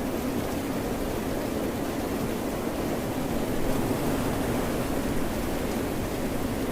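Ocean waves and rain blending into a steady, low rushing wash of water, swelling slightly in the middle.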